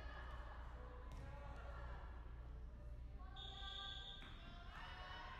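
A referee's whistle blows once, a steady high tone lasting just under a second about three seconds in, over players' and spectators' voices echoing in a gymnasium.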